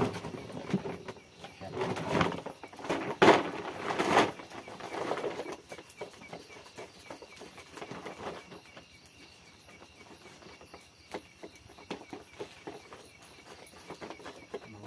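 Night insects chirping in an even, high-pitched pulse throughout, with louder rustling noises in the first five seconds.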